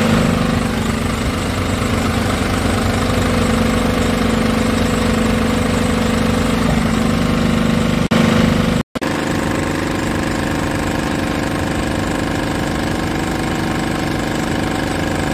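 Scania R 500 tractor unit's 13-litre straight-six diesel engine idling steadily, heard close up from beside the chassis. The sound breaks off briefly about nine seconds in and carries on at the same idle.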